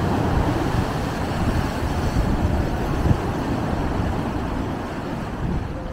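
Sea waves breaking and washing over shoreline rocks, with gusty wind rumbling on the microphone.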